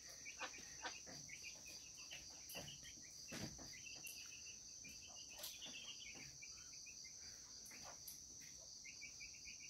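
Faint, steady high drone of crickets, with scattered clusters of soft, high chirps and a few light taps.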